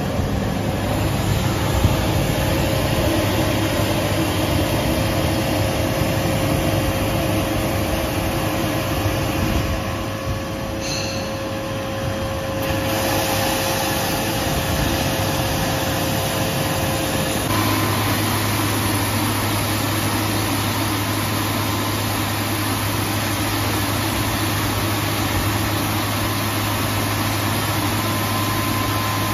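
CBN cam lobe grinding machine running: a steady machine hum with a constant whine that switches to a higher pitch a little over halfway through.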